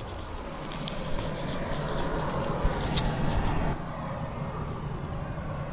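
Steady hum of city road traffic heard through an open window, with a few short clicks of handling near 1 s and 3 s.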